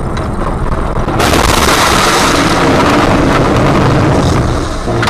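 Car interior road and engine rumble, then about a second in a sudden loud rushing hiss as the car drives into a thick cloud of snow, lasting a few seconds before easing off.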